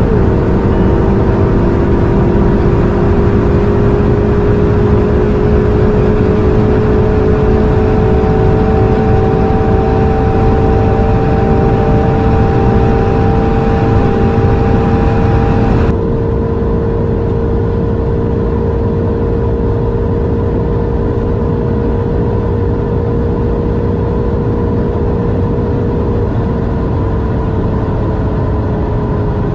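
Engine and road noise inside two twin-turbo V8 supercars, a Ferrari 488 GTB and a McLaren, pulling hard at well over 250 km/h in top gears, mixed together as a steady drone whose pitch rises slowly. The pitch dips briefly right at the start. About halfway through, the sound thins and drops a little in level.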